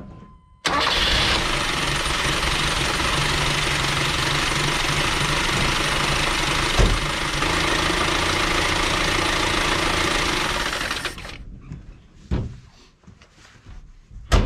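1979 Dodge D50's four-cylinder engine starting abruptly and running for about ten seconds, with one knock partway through, then shut off and fading out. The engine sounds too ticky on the top end, which the owner takes as the sign that it is not getting oil.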